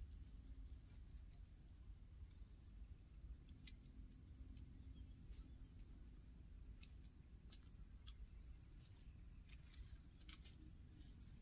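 Near silence: a faint, steady, high-pitched insect drone over a low rumble, with a few faint scattered clicks, the sharpest about ten seconds in.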